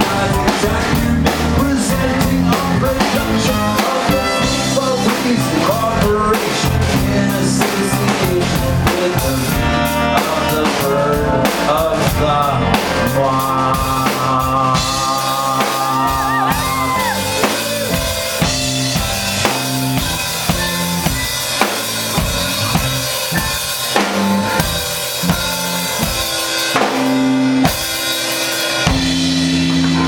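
Live rock band playing an instrumental passage: a drum kit with snare, rimshots and bass drum under a keyboard, trombone and saxophone.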